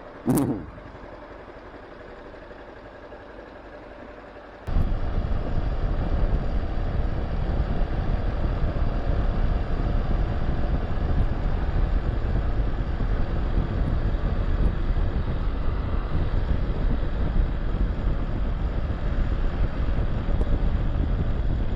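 Honda Super Cub JA07's 110 cc single-cylinder engine running on the move, with wind noise on the microphone. The ride noise jumps up suddenly about five seconds in. The rider hears a strange noise from the engine.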